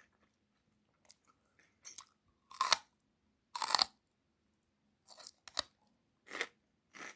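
Celery being chewed: a series of about seven separate crisp crunches with short quiet gaps between them, the loudest two in the first half.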